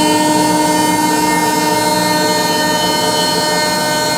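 CNC router spindle milling a pocket in a thick aluminium plate with an 8 mm single-flute end mill: a steady, loud whine of several pitches over the rushing noise of the cut.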